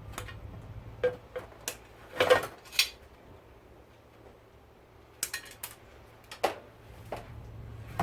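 Scattered metallic clinks and knocks from a garment steamer's metal parts and hand tools being handled as it is taken apart, louder about two seconds in, with a quiet pause in the middle.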